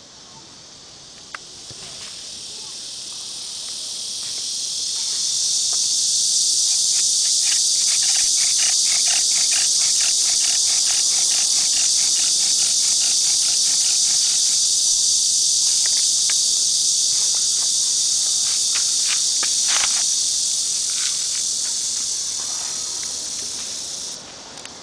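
A loud, high, steady insect drone that swells up over the first few seconds, holds, and fades away near the end. Through its middle stretch there is a fast rhythmic ticking, about four ticks a second.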